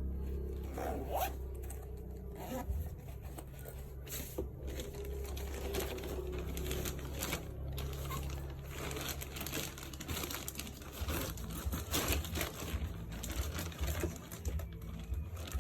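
A fabric iPad bag being handled: irregular rustling and scraping, with short zipper pulls, over a low steady hum.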